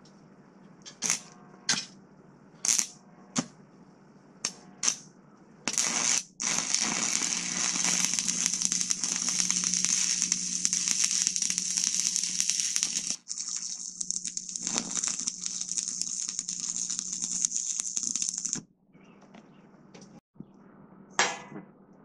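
Stick (arc) welding: a few short sharp pops, then the arc crackles and sizzles steadily for about twelve seconds, broken once briefly about halfway, before it stops. A single sharp knock near the end.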